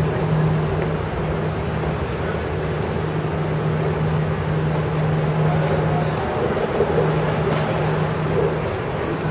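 Road noise heard from a moving vehicle on a city street: a steady rush with a low, steady hum that drops out briefly about six seconds in.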